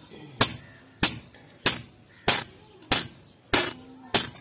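Hand hammer striking a leaf-spring steel cleaver blade on an anvil: seven even blows about two-thirds of a second apart, each with a bright metallic ring that fades before the next.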